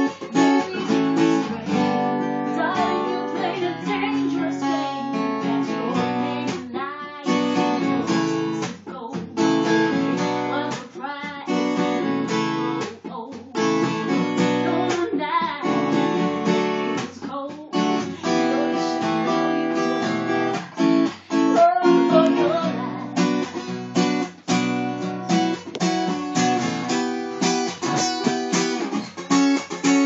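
Acoustic guitar strummed and picked in a steady rhythm, with a woman singing into a microphone over it: a live acoustic pop-rock song.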